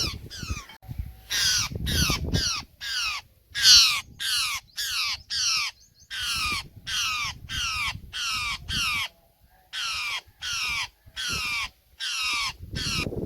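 Trapped plum-headed parakeet screeching in distress while it is being worked free of a net: short, harsh, downward-sweeping calls repeated about twice a second, with a brief pause about two-thirds of the way through.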